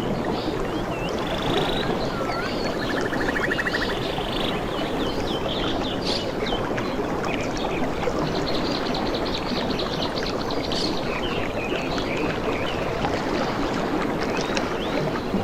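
Steady rush of water with many birds chirping and calling over it. Short rising and falling chirps come throughout, and there are three quick trills, the longest lasting about two seconds near the middle.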